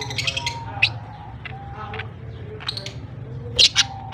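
Budgerigars chattering: a run of short high chirps and warbling notes, with two loud sharp calls close together near the end.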